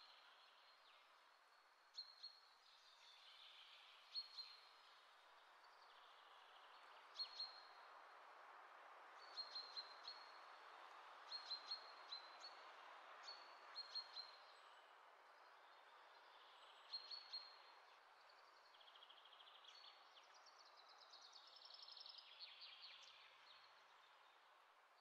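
Faint birdsong: short, high chirps in clusters of two or three every second or two, with a more continuous warbling phrase near the end, over a steady soft hiss.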